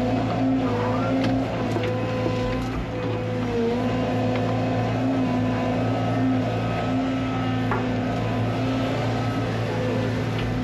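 Large diesel excavator engine running steadily under hydraulic load while digging, its pitch dipping briefly a few times as the load comes on, with light scattered clanks.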